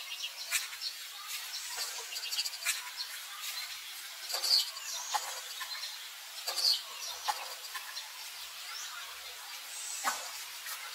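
Outdoor ambience: scattered short, high-pitched chirps and clicks over a steady high hiss, the loudest chirps about four and a half and six and a half seconds in.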